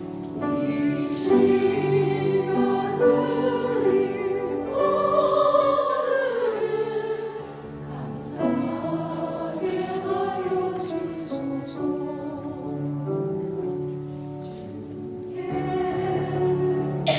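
A church choir singing a hymn in harmony, several voices holding long notes, with brief quieter moments between phrases.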